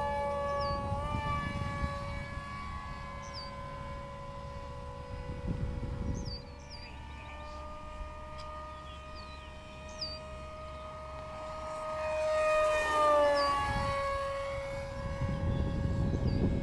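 Motor of a radio-controlled F-117 Nighthawk model plane whining steadily in flight, its pitch shifting a little as the throttle and distance change. About thirteen seconds in it passes close and loud, and the pitch drops as it goes by. Birds chirp now and then, and wind gusts rumble on the microphone.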